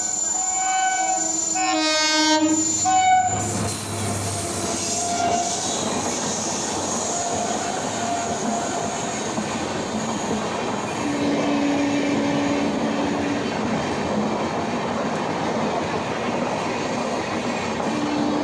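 Horn of an Indian Railways WAP-7 electric locomotive sounding for about the first three seconds, then the express train running past with a steady rush of wheels on the rails.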